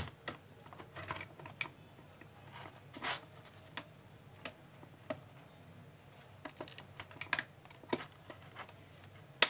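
Irregular plastic clicks and knocks from a handheld metal detector's plastic handle cover being fitted and pressed into place, with one of the sharpest clicks just before the end.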